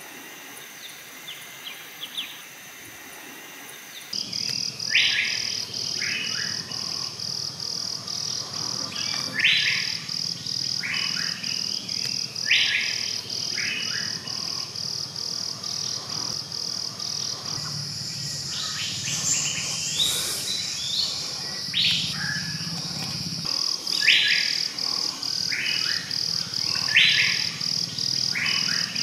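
Forest ambience: a bird calling in loud, short notes, mostly in pairs, every few seconds, over a high, fast-pulsing insect trill that starts abruptly about four seconds in.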